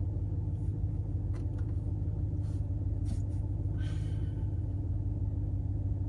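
Ram 1500's 5.7 Hemi V8 idling steadily, heard from inside the cab. A few faint ticks and a brief rustle about four seconds in.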